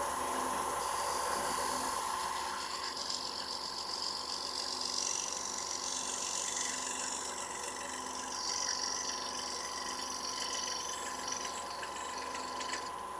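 Wood lathe motor running with a steady whine while a one-inch shear scraper, freshly burred, shears fine shavings off a spinning sycamore bowl. The cutting gives a high scraping hiss that rises and falls as the tool moves. It is a light finishing cut to clear tool marks.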